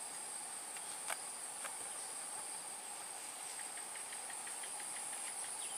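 Swamp insects droning steadily at a high pitch, with a weaker lower drone beneath. Two short clicks come a little over a second in, and faint rapid ticking is heard near the end.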